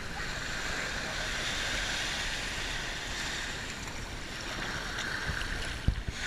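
Small waves washing on a sandy shore, a steady hiss of surf with wind rumbling on the microphone. A brief low thump comes a little before the end.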